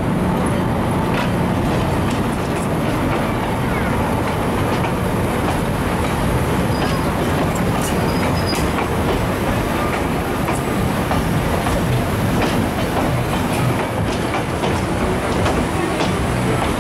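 Carriages of the Hiram Bingham luxury train rolling slowly past close by: a steady noise of steel wheels running on the rails.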